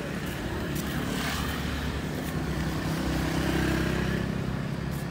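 A motor vehicle's engine running steadily, rising a little in pitch and loudness about three seconds in.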